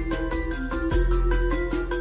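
Background music: short, evenly spaced notes, about four a second, over a sustained bass note that shifts about a second in.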